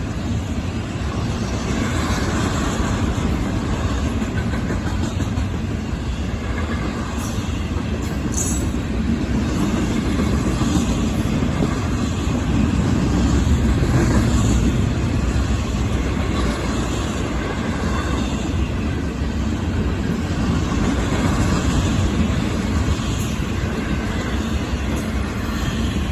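Florida East Coast Railway freight train's trailer-carrying cars rolling past: a steady rumble of steel wheels on the rails.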